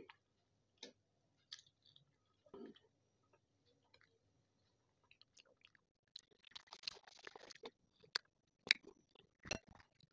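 Close-miked chewing with soft wet mouth clicks. From about six seconds in comes a louder crackly stretch with a few sharp clicks, as flatbread is torn and handled.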